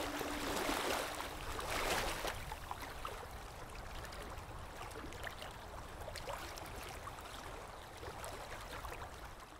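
Watery rushing hiss with many faint crackles, strongest in the first two seconds and then slowly fading away.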